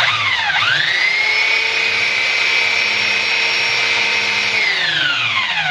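Handheld belt sander, turned upside down on the bench, switched on: its motor whines up to speed and runs at a steady pitch, then is switched off about four and a half seconds in and winds down with a falling whine.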